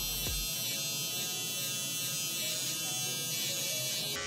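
Small electric T-blade hair trimmer buzzing steadily while it cuts stubble along the beard neckline under the jaw. It stops abruptly near the end.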